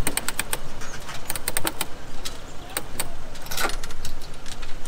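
Scattered light metallic clicks and rattles of a small sailboat's rigging and mast fittings while the mast is being raised.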